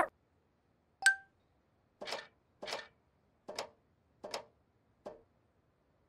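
Cartoon sound effects: a single bright ping about a second in, then five short, soft noises about three-quarters of a second apart, growing fainter.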